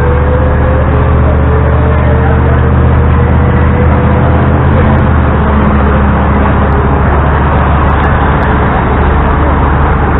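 LiAZ-677M bus's ZIL V8 petrol engine and drivetrain running under way, heard from inside the cabin as a loud, steady drone. A faint whine rises slightly in pitch over the first few seconds as the bus picks up speed.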